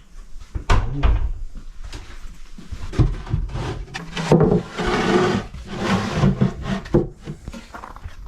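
Plywood drawer boxes knocking and scraping against wooden cabinets as they are handled and pushed in: a string of irregular wooden knocks with rubbing in between.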